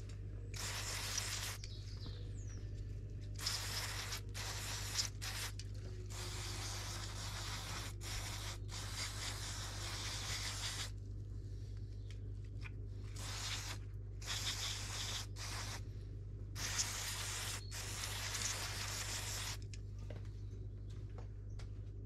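Aerosol brake disc cleaner sprayed in repeated hissing bursts, some a second or more long, onto a Shimano MT200 hydraulic brake caliper, with a paper towel rubbing the caliper clean between sprays.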